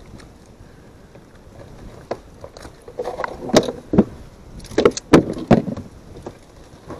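Several sharp knocks and thuds of things being handled in a small boat, against the deck and a plastic cooler box, bunched between about three and six seconds in and loudest about five seconds in.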